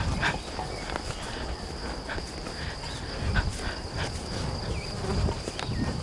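Insects trilling steadily in one high, unbroken note, over irregular low thuds of footsteps and microphone handling as the walker moves through the grass.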